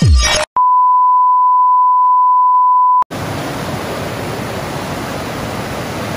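Electronic music ends about half a second in. A single steady beep tone then holds for about two and a half seconds and cuts off sharply, giving way to the steady rush of river rapids pouring over rocks.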